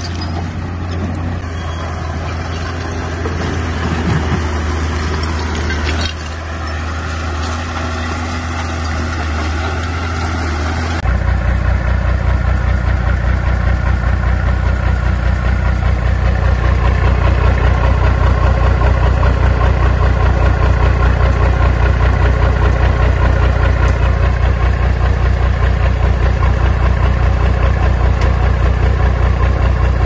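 Diesel engine of heavy earthmoving machinery running steadily. About a third of the way in the sound changes abruptly to a louder, steadier engine note.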